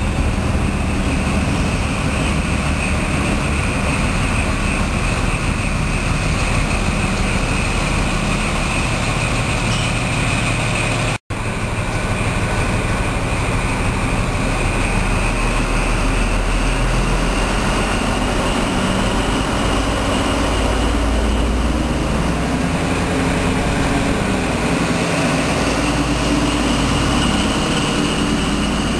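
XPT diesel-electric power cars running as the train moves along the platform: a steady engine rumble with a high whine over it, broken for an instant about eleven seconds in. In the second half the engine note rises and grows louder as the power car draws level and passes close by.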